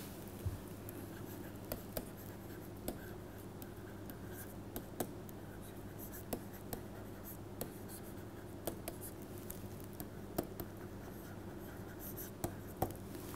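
Pen stylus tapping and scratching on a tablet surface while handwriting: an irregular scatter of light sharp ticks.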